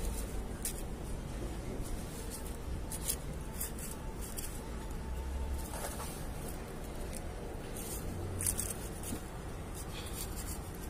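A metal blade scraping and digging through dry, gritty potting soil in a clay pot, in short irregular scratches over a low steady hum.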